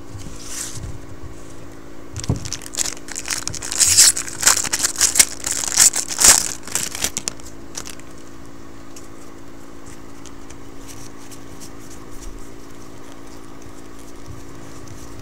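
Foil wrapper of a 2012 Topps football jumbo pack crinkling and tearing as it is ripped open, for about five seconds, followed by soft clicks of the cards being slid and fanned through by hand.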